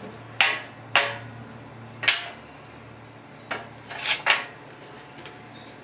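Six sharp knocks or strikes at uneven intervals, each with a short ringing tail, two of them close together about four seconds in, over a faint steady hum.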